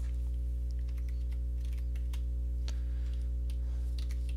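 Steady electrical mains hum with faint, irregular computer keyboard and mouse clicks as a number is typed in.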